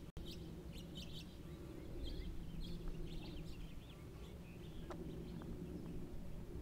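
Small birds chirping in short, high calls, thickest in the first second and a half and scattered after that, over a faint steady low rumble of outdoor background noise.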